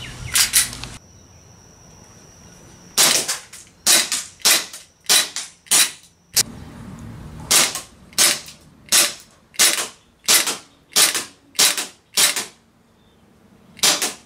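Storm Airsoft Arsenal Glock 17 Gen 4 gas blowback airsoft pistol firing on green gas: a string of sharp pops, each with the clack of the slide cycling. The shots come in uneven runs, then evenly about one every two-thirds of a second, and end with a single last shot that leaves the slide locked back on an empty magazine.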